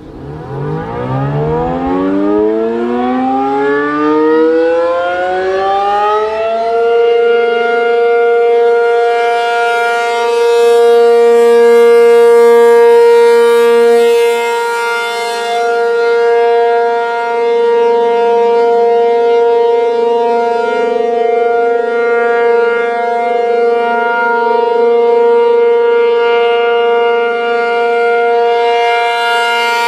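ACA P-50 outdoor warning siren winding up, its pitch rising for about six and a half seconds, then holding one steady tone: the steady Alert signal of a siren test.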